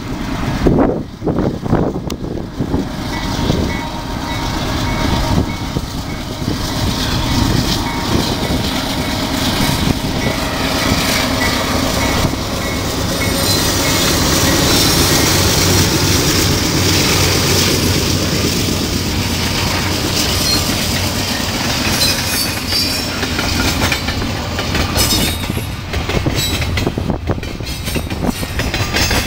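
BNSF diesel freight train passing close by. The locomotives go past with a heavy rumble, loudest around the middle, and a string of double-stack container cars follows with their wheels clattering over the rail joints.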